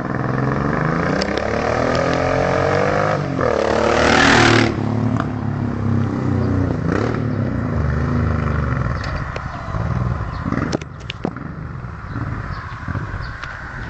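Motorcycle passing at speed: the engine note climbs as it approaches, dips briefly, peaks loudly as it goes by about four seconds in, then drops in pitch and fades as it rides away.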